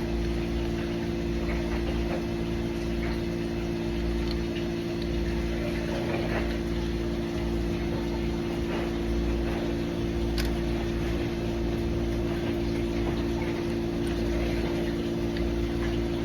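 A steady machine hum with several constant tones, like a running motor or pump, with a few faint clicks over it and one sharper click about ten seconds in.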